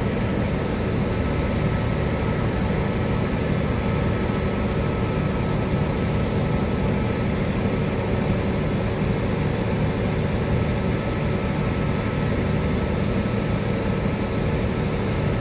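SRT CDA5B1 diesel-electric locomotive no. 5220 idling at a standstill while its engine warms up: a steady low engine rumble with a constant hum over it.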